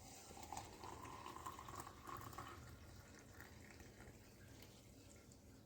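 Water being poured into the AeroPress Go's brewing chamber over the coffee grounds, faint, with a slight filling note in the first half.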